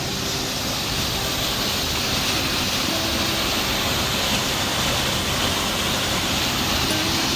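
Waterfall plunging into a rock pool: a steady, loud rush of falling water that grows a little louder about two seconds in.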